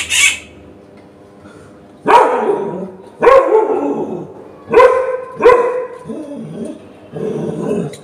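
Pet rufous treepie crying out loudly and harshly, five calls a second or so apart, the crying it does when left alone in the room. A brief hiss comes right at the start.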